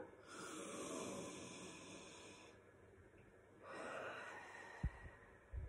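A woman breathing deeply through her nose into cupped hands while smelling peppermint oil rubbed on her palms: one long breath, then a second shorter one a little over a second later, soft and muffled by the hands. Two faint low bumps near the end.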